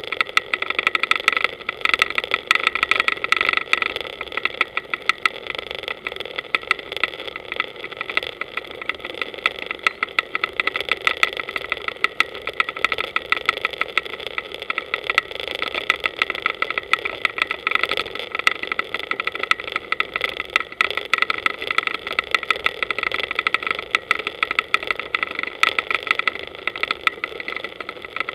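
Powerboat engine running steadily, with dense rapid crackling throughout.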